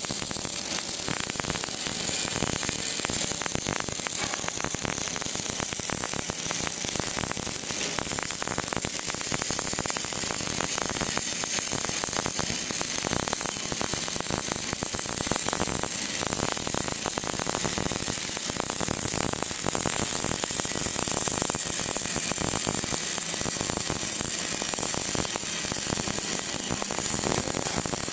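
Electric arc welding: the arc crackling without a break, a dense fast crackle over a steady high hiss.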